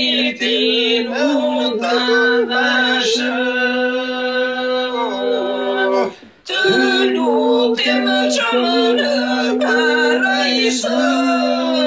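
A song: a voice sings a wavering, ornamented melody over a steady held drone note. There is a brief break about six seconds in.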